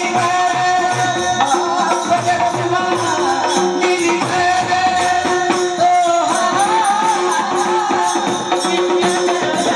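Marathi folk devotional song: a woman's voice sings a winding melody over held drone notes, with a steady jingling percussion beat.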